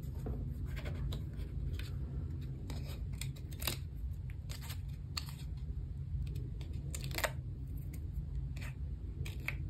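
Scattered small clicks and crackles of foam adhesive dimensionals being peeled off their backing sheet and pressed onto the back of a paper circle, over a steady low hum.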